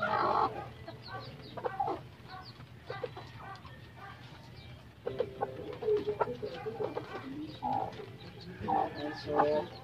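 Newly hatched chicks peeping in many short, high chirps, while a broody hen clucks in lower repeated notes as her chicks are taken from the nest. There is a louder burst right at the start.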